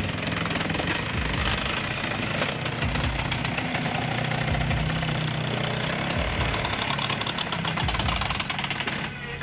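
A machine's engine running steadily with a fast rattling knock, dropping off just before the end.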